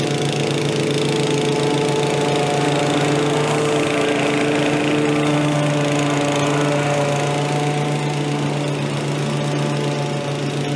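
Walk-behind gas lawn mower engine running steadily under load while cutting grass.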